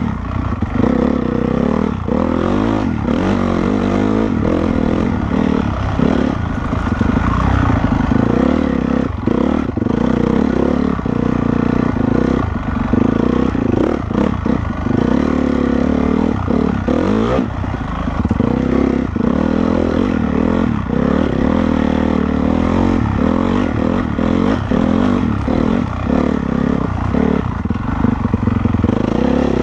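Honda CRF450R's single-cylinder four-stroke engine running hard while the bike is ridden off-road, the revs rising and falling constantly with the throttle. Frequent knocks and clatter run through it.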